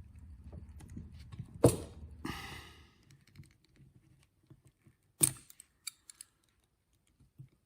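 Hand tools and small parts being handled: two sharp clacks, about a second and a half in and about five seconds in, with a brief rustling hiss after the first and a few light ticks after the second.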